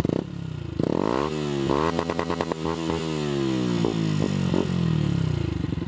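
2014 Yamaha MT125's single-cylinder four-stroke engine, fitted with an Akrapovič full exhaust system, revved in a series of throttle blips. The revs climb sharply about a second in and again shortly after, fall away with a few short blips, and drop back to a steady idle near the end.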